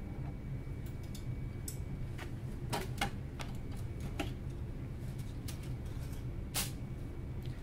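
Irregular plastic clicks and knocks as a filament spool is handled and pushed onto its holder inside a 3D printer, over a steady low hum. The sharpest clicks come about three seconds in and again near six and a half seconds.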